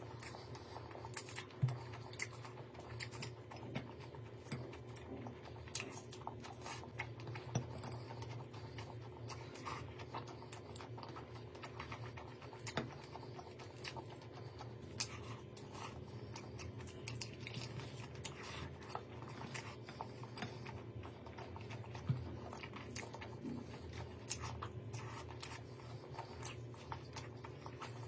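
Scattered small clicks, taps and scrapes over a steady low hum, in the way of food being handled and eaten.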